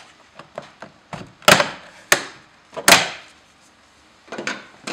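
Plastic inner door-handle trim on a ZAZ Vida's door being pried off with a flat screwdriver: a few small clicks, then three sharp snaps about a second and a half, two and three seconds in as its clips let go. A quick run of clicks follows near the end.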